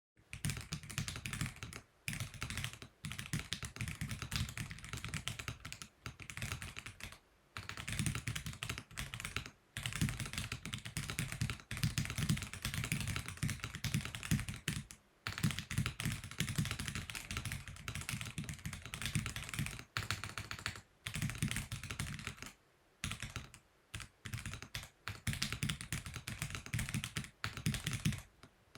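Feker Alice80 mechanical keyboard in stock form being typed on: fast runs of key clacks, broken by short pauses every few seconds.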